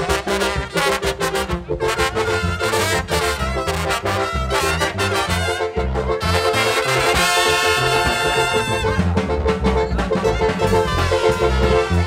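Brass band with trumpets playing a lively dance tune over a steady, pulsing bass beat. About six and a half seconds in, the band holds one long bright chord for a couple of seconds, then the beat picks up again.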